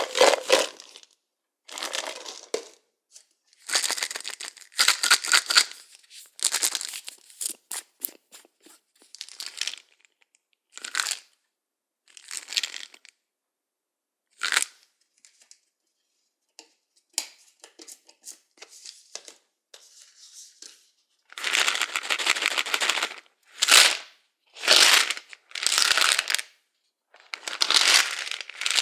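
Pills rattling inside pill bottles, shaken in short bursts of dense clicking with pauses between. Around the middle there are only sparse, scattered ticks; the shakes near the end are longer and louder.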